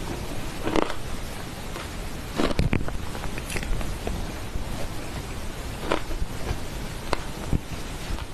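Shaved ice being eaten: about six separate crunches and clicks, the strongest a little under 3 seconds in, over a steady low hiss.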